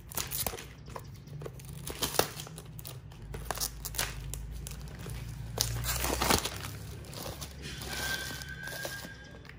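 Plastic packaging crinkling and crackling as a sealed box of rubber O-rings is unwrapped and opened, with scattered sharp clicks from handling the plastic case.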